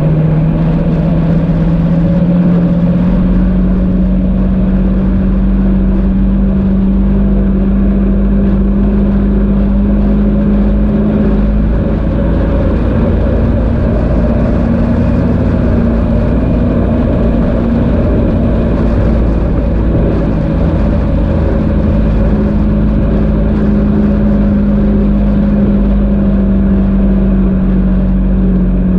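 Engine of an off-road vehicle running at a steady speed along a sandy trail, its pitch rising slightly in the first few seconds and easing down near the end, over a low rumble.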